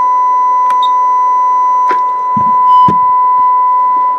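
Steady 1 kHz audio test tone, the signal driving a CB radio's AM carrier to 100% modulation. It cuts off suddenly at the end, with a few faint clicks and light knocks over it.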